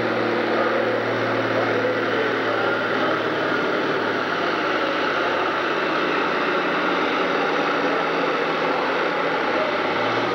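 Diesel farm tractor engine running at full throttle under heavy load while pulling a weight-transfer sled, a loud steady drone. The thick black smoke from the stack shows the engine working flat out.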